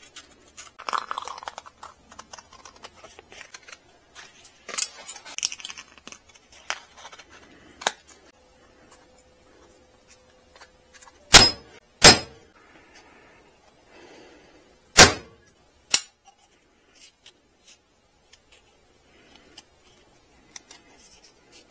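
Small metal carburetor parts and tools being handled, giving scattered light clicks and clatter. About halfway through come two sharp knocks less than a second apart, and two more follow a few seconds later.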